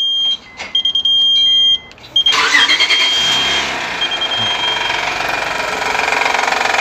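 A high electronic beep sounds in stretches, then a Honda Elysion's 3.0-litre V6 with cylinder deactivation cranks, catches a little over two seconds in, and runs with a fast, even rattle. The rattle comes from the deactivatable cylinder head and sounds like knocking camshafts or connecting rods.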